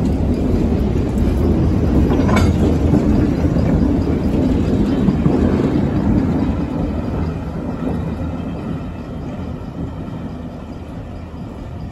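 A string of EMD GP-series diesel locomotives rolling past, a heavy rumble of engines and wheels on the rails with a sharp rail noise about two seconds in. The sound fades steadily through the second half as the last unit moves away.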